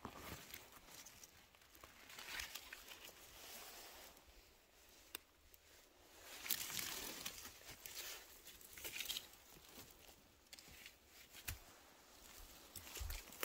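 Faint, irregular rustling and crunching of forest-floor litter, dry needles and duff, with a few sharp snaps; the loudest stretch comes about halfway through.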